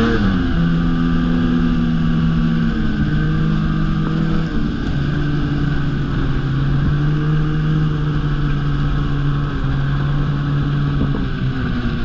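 Ski-Doo snowmobile engine running under the rider while riding a trail, its note stepping down in pitch several times as the sled slows, with wind and track noise underneath.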